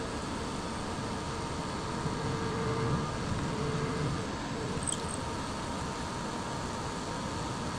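Precision Matthews PM-25MV benchtop mill running steadily with a motor whine while drilling holes with a number 29 drill bit.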